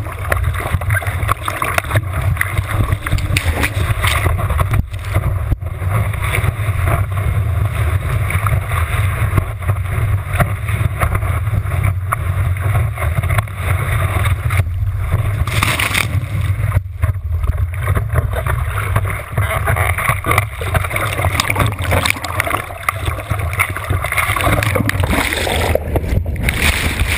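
Water rushing and splashing over a surfboard-mounted HD Hero camera in its waterproof housing, a loud, continuous muffled rumble as the board paddles into and rides a wave. Near the end the camera goes under the whitewater and the sound briefly dulls.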